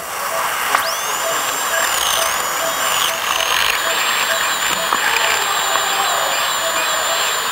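High-speed dental handpiece (air-turbine drill) spins up about a second in and runs with a steady high whine as its bur works on a child's primary tooth, over a hiss of water spray and suction. A short beep repeats steadily about two to three times a second underneath.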